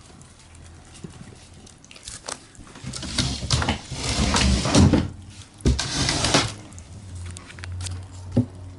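Paper rustling and scraping, loudest in two stretches of a second or two in the middle, with a few sharp clicks; a faint low hum underneath.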